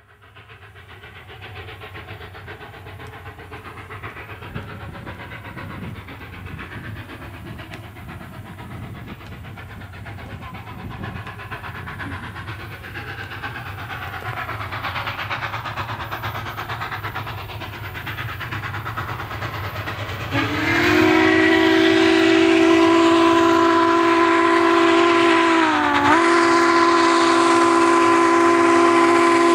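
Southern Pacific GS-4 4-8-4 steam locomotive No. 4449 approaching under steam, a low rumble growing steadily louder. About two-thirds of the way in, its steam whistle starts a long, loud blast of several notes at once, sounding for the crossing, with a brief sag in pitch partway through.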